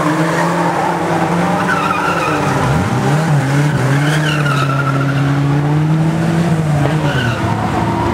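Banger racing cars' engines running hard on an oval track, one revving up sharply about three seconds in and holding there. Tyres squeal now and then over the engines.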